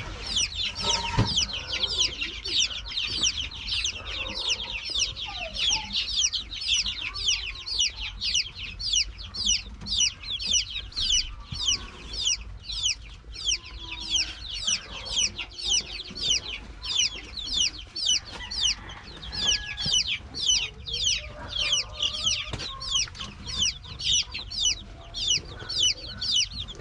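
Week-old native chicks peeping steadily: a continuous run of high, falling peeps, about two a second.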